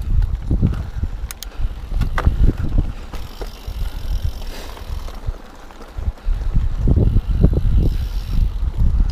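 Mountain bike riding over a rough dirt singletrack: a steady low rumble from the tyres and frame, with frequent knocks and rattles as the bike hits bumps. It eases for a couple of seconds around the middle, then the rattling picks up again.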